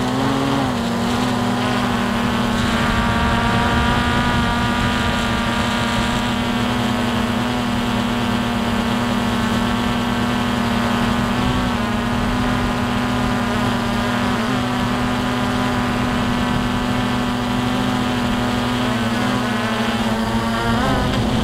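A drone's electric motors and propellers whining steadily, heard through its onboard camera, with wind rumble on the microphone. The pitch shifts briefly near the start and again near the end as the throttle changes.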